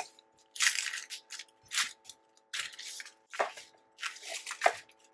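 Dry, papery yellow onion skin crackling and rustling in short, irregular bursts as it is peeled and pulled away from the onion with a knife.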